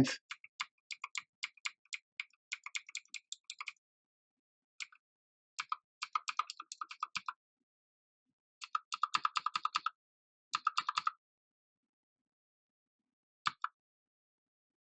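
Keys of an MK Disco TKL mechanical keyboard being pressed, single clicks at first and then quick runs of taps with pauses between, as the FN key combinations step through the backlight colour settings.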